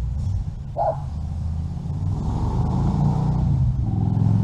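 Motor vehicle engine running nearby, a low rumble that grows louder over the second half. A short higher-pitched squeak about a second in.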